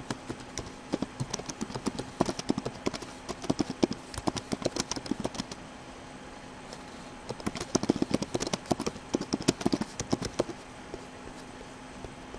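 Typing on a computer keyboard: a run of quick key clicks lasting about five seconds, a pause of about two seconds, then another run of about three seconds.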